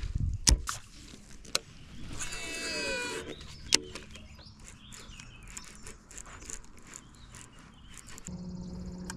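A drawn-out animal call with a falling pitch, about two seconds in, amid a few sharp clicks. A steady low drone starts near the end.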